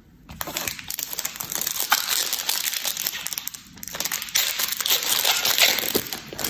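Wrapper of a Panini Donruss Optic Fast Break trading-card pack crinkling and crackling as it is handled and torn open. The sound comes in two spells, with a short lull about three and a half seconds in.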